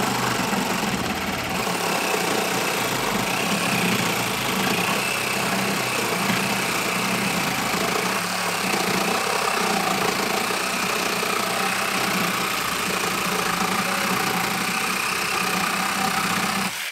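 TackLife 12-volt cordless mini reciprocating saw running steadily under load, its blade cutting slowly through a 2x4 clamped in a vise. The saw stops abruptly at the very end.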